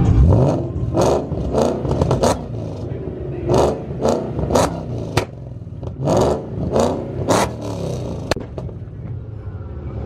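Shelby GT500's supercharged V8 revved in about a dozen quick blips, many ending in sharp exhaust cracks as it shoots flames, with the engine dropping back to a lower running sound between blips.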